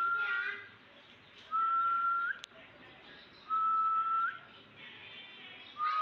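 Alexandrine parakeet whistling the same steady note over and over, each just under a second long with a quick upward flick at the end, about every two seconds.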